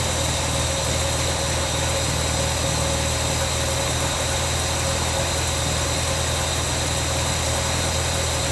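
1967 Austin-Healey 3000 Mark III BJ8's straight-six engine idling steadily.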